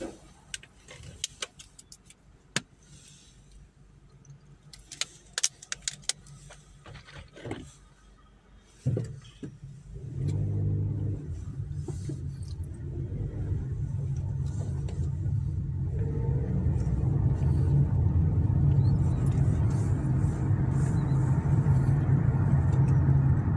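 Inside a car: near quiet with a few sharp clicks for the first nine seconds, then the engine comes in with a thump and the car pulls away, its engine and road noise growing steadily louder.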